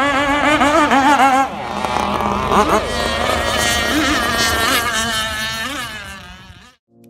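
Several radio-controlled racing boats' small engines whining at high revs, the pitch wavering and gliding up and down as the boats pass. The sound fades out about six seconds in.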